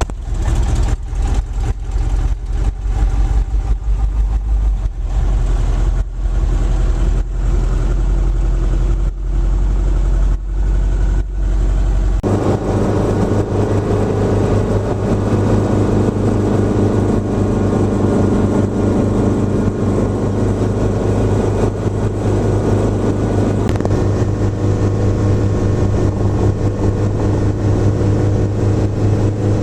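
Helicopter engine and rotor running steadily and loudly. About twelve seconds in the sound changes abruptly: the deepest tone drops away and a fuller, higher drone takes over. Short crackles run through the first part.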